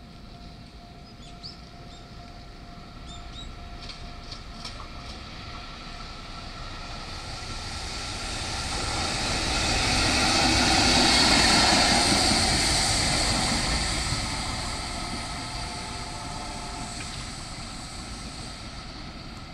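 EF65 electric locomotive running light, with no train behind it, passing by: its wheels on the rails grow louder to a peak about halfway through, then fade as it moves away.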